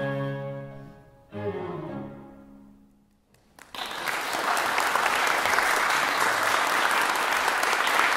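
A baroque flute, violin, viola and cello end a Finnish polska: a held chord fades, a last short chord sounds about a second and a half in and rings away, then the audience breaks into applause about three and a half seconds in and keeps clapping steadily.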